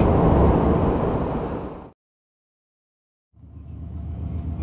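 Tohoku Shinkansen running noise heard inside the carriage, a steady low rumble. It fades out to silence about two seconds in and fades back in a second and a half later.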